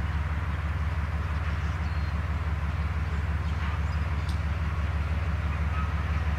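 GE B23-7 diesel locomotive's 12-cylinder engine running with a steady low rumble as it pulls hopper cars. A few faint bird chirps are heard over it.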